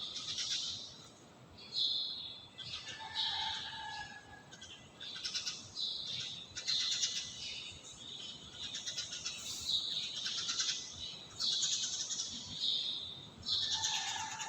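Birds chirping repeatedly: short high calls and brief whistled notes coming every second or so.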